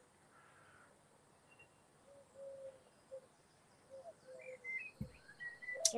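Faint birds chirping in a mostly quiet garden, with a soft knock about five seconds in.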